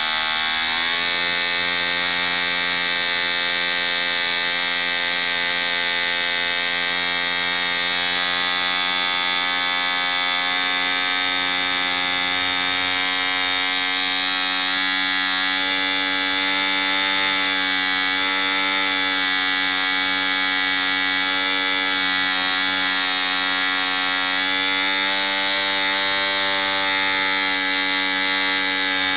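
ED Hunter 3.46 cc model diesel engine running flat out on a test stand with an 11x6 propeller, at about 6000 rpm, as a steady high buzz. Its pitch dips briefly near the start and then wavers slightly as the compression screw is adjusted.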